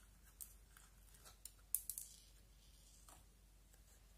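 Small plastic slime tub being opened and emptied by hand: a few short, sharp plastic clicks and crackles, the loudest cluster about two seconds in.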